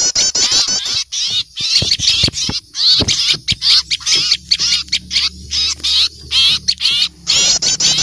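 A bird-lure recording of many small birds chattering in alarm, as when mobbing an owl: a dense, noisy chorus of rapid, repeated high chirps overlapping one another.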